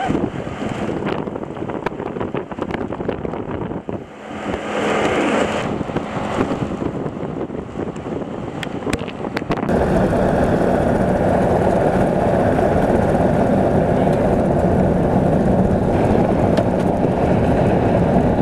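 Steady vehicle rumble mixed with wind noise on the microphone, with a few faint knocks. About ten seconds in the sound cuts abruptly to a louder, steadier rumble.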